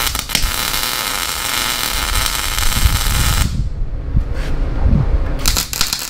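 Wire-feed welder arc crackling steadily for about three seconds as a tack weld is laid on steel, cutting off abruptly. A second short tack weld starts near the end.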